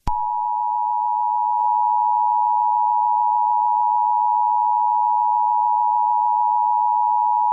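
Emergency broadcast attention tone: one steady electronic pitch a little under 1 kHz, starting abruptly and held unbroken, signalling an emergency message.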